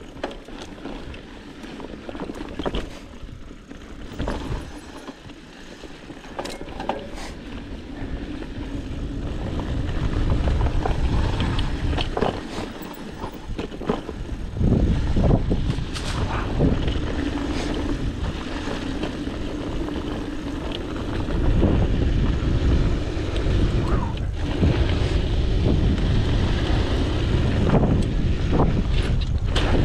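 Specialized Rockhopper mountain bike ridden over a rough dirt trail: tyres rolling and crunching, with the bike clattering and knocking over bumps, and wind rushing over the microphone. The wind noise grows louder about a third of the way in and again past the middle, as speed picks up.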